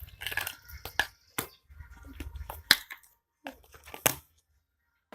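Objects being handled and set down: a string of sharp clicks and knocks with rustling in between, the loudest knocks near the middle and about four seconds in.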